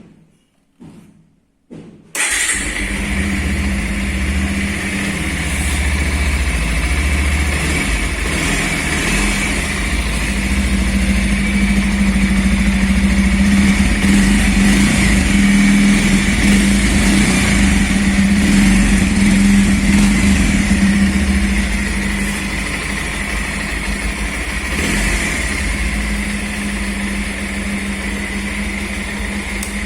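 Bajaj Pulsar 150 BS6 motorcycle's single-cylinder air-cooled engine starting about two seconds in, catching at once, then idling steadily through its exhaust, growing a little louder midway before easing back.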